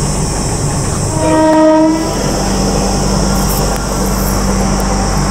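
A train horn sounds once, a single steady note lasting just under a second, about a second in. Under it runs the steady hum of a stationary train.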